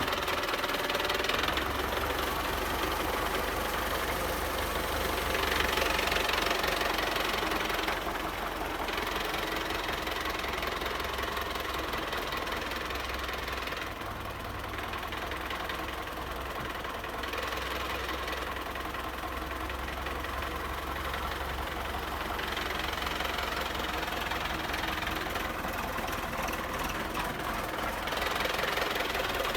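Belarus MTZ 820 tractor's diesel engine running steadily, with a hiss above it that rises and falls every few seconds.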